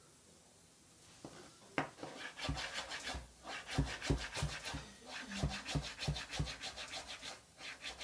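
Knife dicing tomatoes into small pieces: after about a second and a half of near quiet comes one sharp tap, then quick, evenly repeated scratchy cutting strokes.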